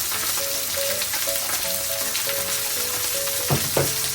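Skewered meat and vegetables sizzling steadily on a hot plate, under faint background music of short held notes. Two light knocks come about three and a half seconds in.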